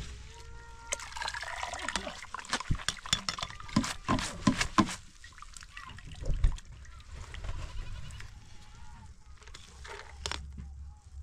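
Cooked spaghetti being scooped with a metal ladle out of a plastic colander into a metal pot: wet squelching and slapping of the noodles, with clinks and scrapes of the ladle. Busiest in the first half.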